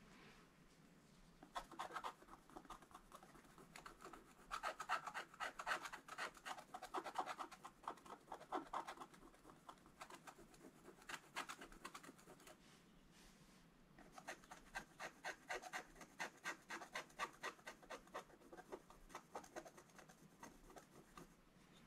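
Wooden stick scratching the black coating off scratch-art paper in several runs of quick, short strokes with brief pauses between them.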